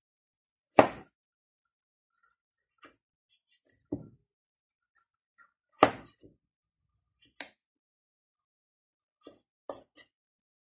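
Kitchen knife cutting through raw squash and striking a wooden cutting board: separate sharp knocks every second or two, unevenly spaced, the loudest about a second in and near the middle.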